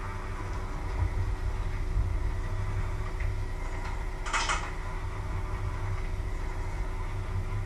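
Kitchen work sounds over a steady low hum, with one short scraping hiss about four seconds in.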